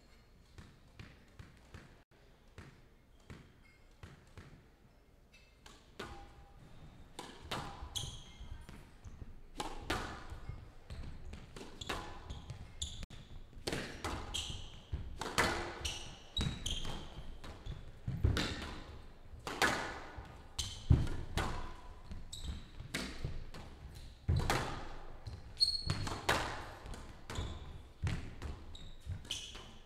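Squash rally: the ball cracks off the racquets and smacks the front and glass side walls in a fast, irregular series of sharp echoing hits. Only faint taps come in the first few seconds; the rally picks up about six seconds in and the hits grow louder toward the end.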